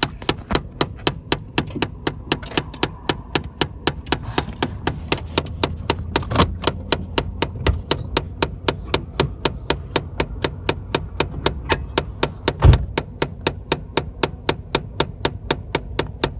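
Chevy Cavalier making a steady, rapid clicking, a little over three clicks a second and perfectly even, over a low hum, with one louder knock about three quarters of the way through. The owner traces the clicking to a box in the car that he can't identify.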